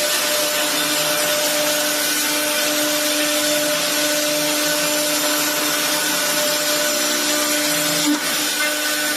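CNC router spindle running and cutting wood: a steady whine over a constant cutting hiss, with a brief blip and dip about eight seconds in.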